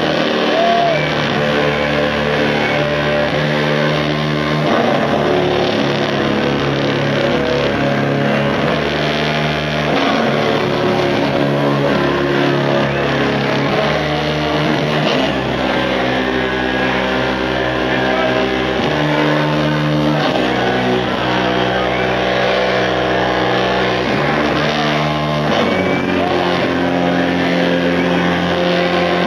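Loud live instrumental rock from a trio of bass guitar, drums and baritone saxophone, with long held notes over the drums and cymbals.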